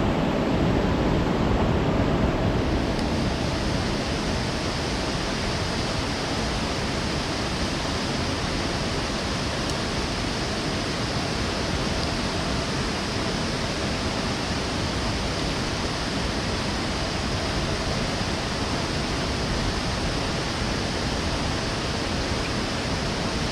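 Steady, loud rushing of water with no breaks. Its tone shifts slightly about two and a half seconds in.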